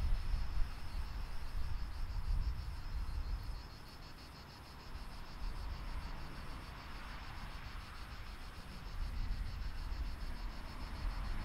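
Insects chirping in a steady, high, rapidly pulsing buzz over a low rumble; the rumble drops away about four seconds in and swells again near the end.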